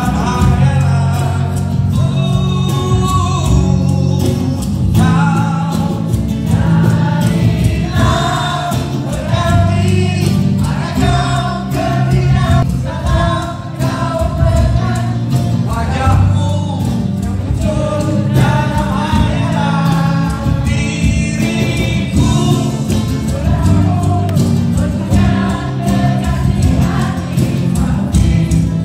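Music with singing: a live band plays, with sung melody over steady bass and drum beats.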